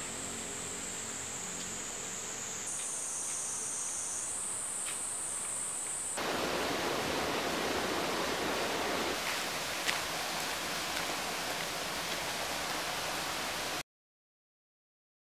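Outdoor park ambience: insects trilling, a steady high-pitched band that shifts pitch twice. About six seconds in, a louder, even hiss takes over, then cuts off abruptly near the end, leaving silence.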